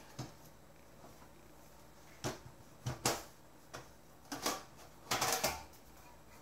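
Metal casing of a DVD recorder being handled and opened: scattered knocks and clicks as the unit is shifted on the mat, then a longer rattling scrape about five seconds in as the top cover slides free and is lifted off.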